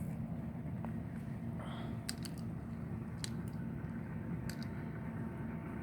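Steady low outdoor rumble with a few sharp clicks, about two, three and four and a half seconds in.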